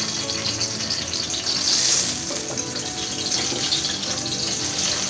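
Whole spices (cinnamon stick, cardamom pods and a bay leaf) sizzling in hot oil in a stainless steel kadai over a low flame: a steady hiss that swells briefly about two seconds in.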